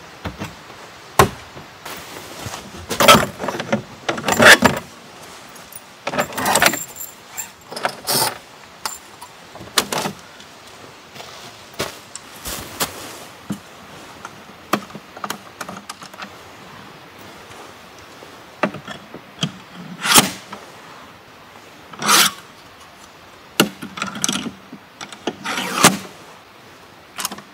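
A string of separate clicks, clunks and rustles from gear being handled. First comes the latch and lid of a Land Rover Defender's side-mounted gear case. Then a portable Debasto diesel heater is set down and its hinged top panel is swung up. The loudest knocks come a few seconds in.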